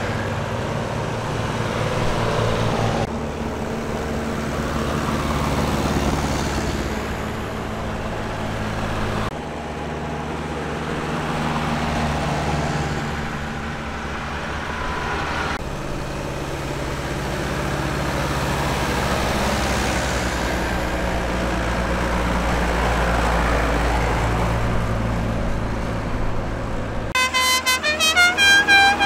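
Tractor engines running steadily as the tractors travel, the sound changing abruptly a few times. Near the end, a horn sounds a quick run of short notes stepping up and down in pitch.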